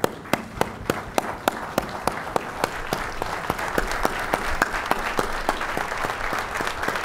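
Standing ovation from a large seated audience: a few distinct, evenly paced claps at first, then applause swelling over the first few seconds into steady clapping from the whole room.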